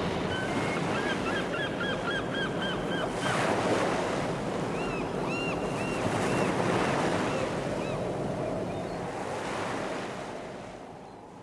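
Sea waves surging, with two swells, and a run of quick repeated gull calls in the first few seconds and a few more in the middle. The sound fades out near the end.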